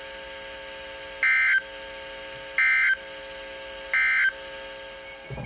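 Three short bursts of Emergency Alert System SAME digital data, a harsh warbling electronic screech, about a second and a half apart. They are the end-of-message bursts that close a severe thunderstorm warning. A steady electronic hum runs underneath.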